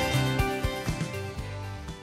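Background music getting steadily quieter as it fades out.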